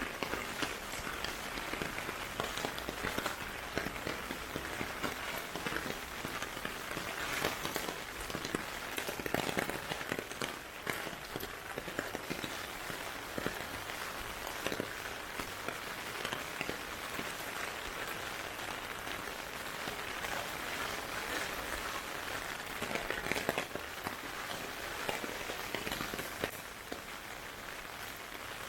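Heavy typhoon rain falling steadily, with many close raindrops pattering and ticking on hard surfaces. It eases a little near the end.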